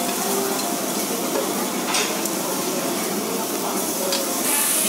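Shrimp sizzling on a hot tabletop grill plate as metal tongs turn them, with a couple of short clicks from the tongs, one about two seconds in and one near the end.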